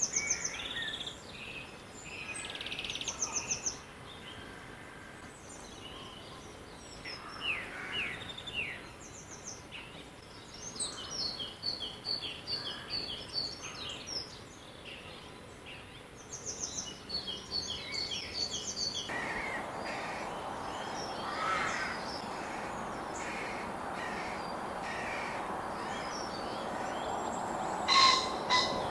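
Small songbirds singing and chirping, bright high notes and repeated song phrases, over a steady background hiss that grows louder about two-thirds of the way through. Near the end comes the loudest sound, a short, harsh two-note call: a male ring-necked pheasant crowing.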